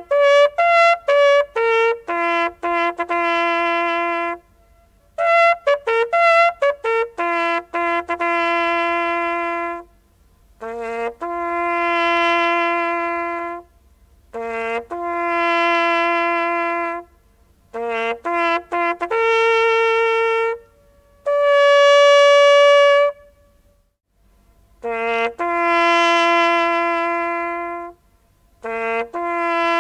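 A solo trumpet-like brass horn playing a slow bugle call as a memorial piece, one note at a time. Quick runs of short notes alternate with long held notes, phrase by phrase, with short pauses between.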